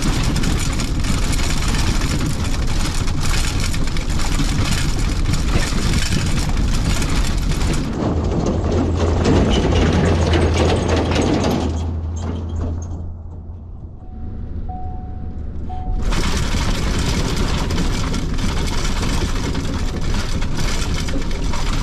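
2023 Ford Super Duty pickup truck being driven over a rough durability course: loud road noise inside the cab, with knocks and rattles from the body and test equipment over the bumps. A stretch near the middle is mostly the deep sound of the truck's engine and tyres passing outside, followed by a quieter moment with a short steady beep.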